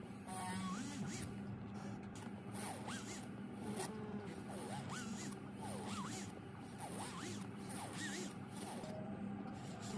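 Fine metal-on-metal scraping of a small setting tool cutting the claws between the diamonds of a white gold band, short scratchy strokes repeated every half second or so, over a steady low hum.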